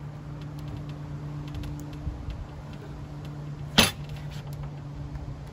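Chef's knife cutting into a raw, peeled butternut squash on a plastic cutting board: faint creaks and small clicks as the blade works through the hard flesh, with one sharp knock a little under four seconds in. A steady low hum runs underneath.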